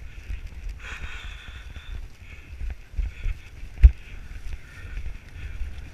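Wind buffeting the microphone of a camera carried on a horse moving fast over heath, with the irregular thud of hooves and one sharp knock about two-thirds of the way through.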